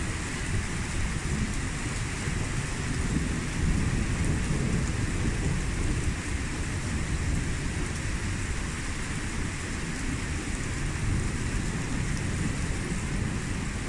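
Steady rain falling in a thunderstorm, with thunder rumbling low underneath and swelling about four seconds in.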